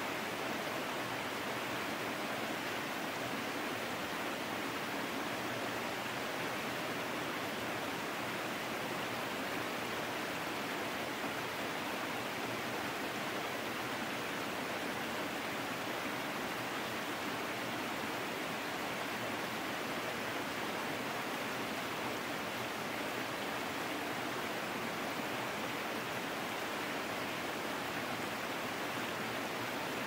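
Small waterfall cascading over mossy rocks into a shallow pool: a steady, unchanging rush of falling and splashing water.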